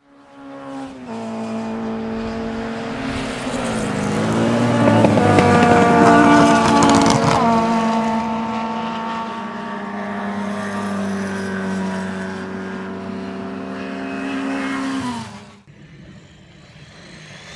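RC monster truck's motor and drivetrain, heard from a camera mounted on the truck, giving a steady whine at near-constant pitch as it runs a lap of a dirt track. It dips briefly once, and in the middle there is a louder stretch of clatter and rush from the tyres over the dirt. The whine cuts off suddenly near the end.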